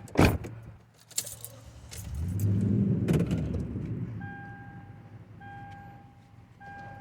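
A vehicle's warning chime beeping steadily, about once a second, with a sharp knock near the start, keys jangling and a low rumble swelling and fading around the middle.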